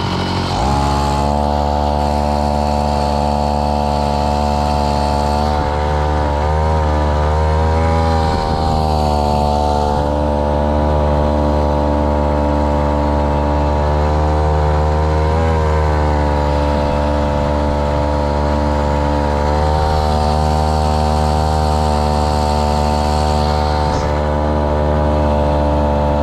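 Small grass-trimmer engine driving a long-tail propeller shaft on a boat under way, running steadily with a few brief dips and recoveries in pitch.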